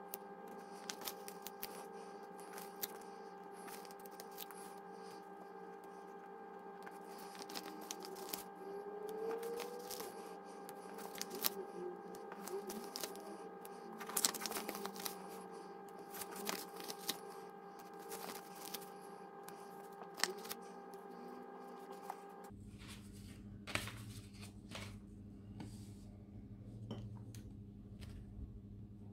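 Paper planner sheets and stickers handled by hand: rustling, crinkling and small ticks as sticker sheets are peeled, pages lifted and stickers pressed down. A steady background hum runs underneath and shifts lower about 22 seconds in.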